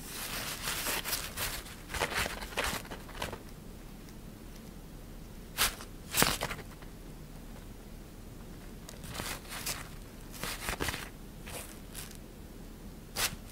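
Crinkly synthetic fabric rustling in scattered bursts as a cat teaser wand with a pom-pom tip is poked and dragged under and over it, with short pauses between; the sharpest rustles come about six seconds in and at the very end.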